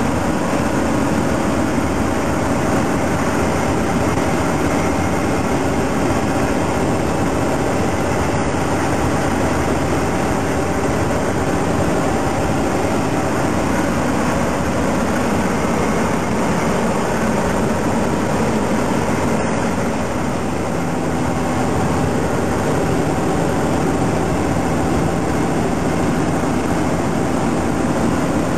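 Steady drone of a semi truck's diesel engine and road noise while driving. The engine note holds nearly constant, shifting slightly about two-thirds of the way through.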